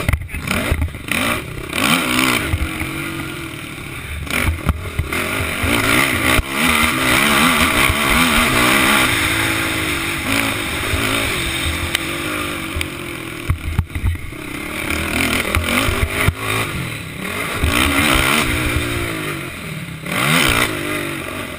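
Racing quad's engine revving hard and easing off again and again, its pitch sweeping up and down, cutting out briefly a few times, heard on a helmet camera over a steady rush of wind and knocks from the rough track.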